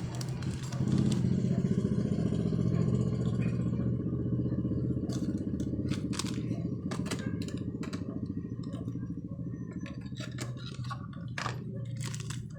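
A motorcycle engine idling steadily, with small clicks and rattles of parts being handled over it from about five seconds in.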